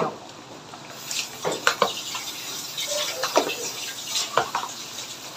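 Two metal spoons folding creamy buko salad in a large bowl: wet squelching of the cream-coated coconut and fruit, with scattered clicks and scrapes of the spoons against the bowl.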